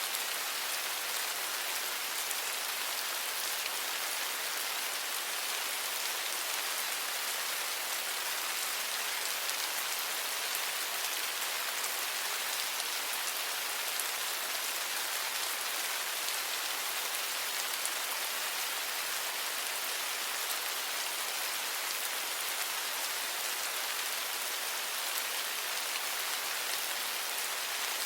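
Steady rain falling, an even hiss with many small drop ticks and no let-up.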